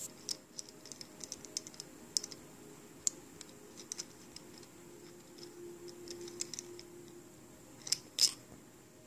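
Irregular small clicks and light scrapes of small hard objects being handled, with a few louder clicks near the end, over a faint steady hum.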